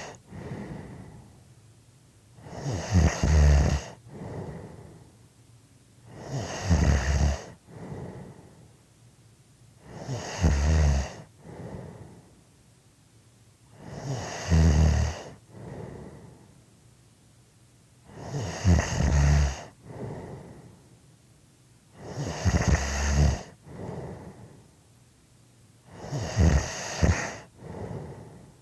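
A sleeper snoring steadily: seven rattling snores, one about every four seconds, each followed by a softer breath.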